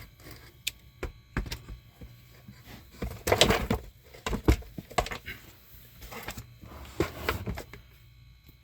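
Irregular knocks, clicks and scraping of a canister vacuum's motor being lifted out of its plastic housing, with the loudest clatter about three and a half seconds in and a sharp click about a second later. It fades away near the end.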